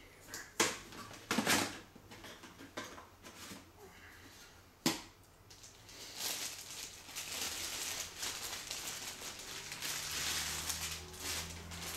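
Handling noise from unpacking: a few sharp knocks and rustles against a cardboard box in the first five seconds, then steady crinkling of a clear plastic bag wrapped around a camera lens.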